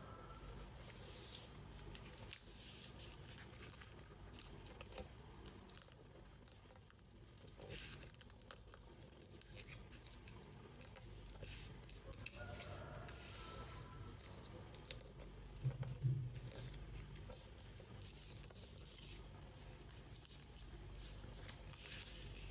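Sheet of origami paper being handled, folded and creased, with a stop-start rustle and small crinkles, and one low thump about two-thirds of the way through.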